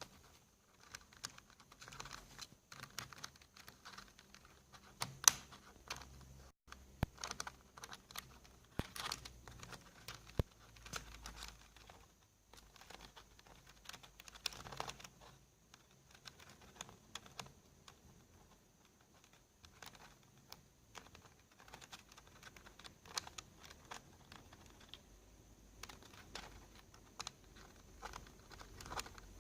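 Cockatiel pecking and prying at computer keyboard keys: irregular plastic clicks and clatters, with a lull of fewer clicks around the middle.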